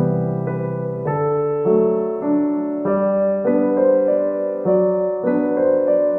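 Background music: a gentle piano or electric-piano tune, its notes and chords changing about every half second to a second.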